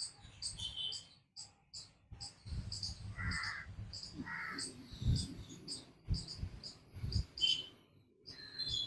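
Small birds chirping over and over, with two lower, harsher calls about three and four and a half seconds in. Under them come several soft, low breaths, the loudest about five seconds in: slow ujjayi pranayama breathing through a narrowed throat with the mouth closed.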